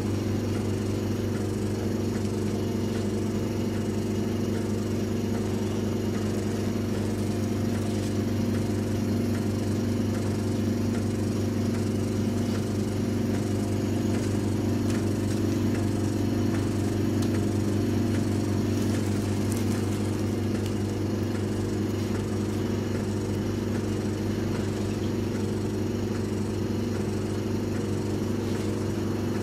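Body sculpting machine's vacuum rotating handpiece running on the skin, its motor and suction pump giving a steady, even hum.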